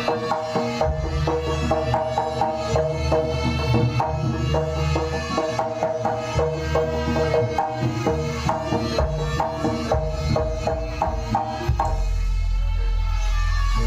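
Live jaranan ensemble music: rapid, regular drum strokes and struck metal tones over a deep bass. About twelve seconds in, the higher tones drop away and a deep low tone holds.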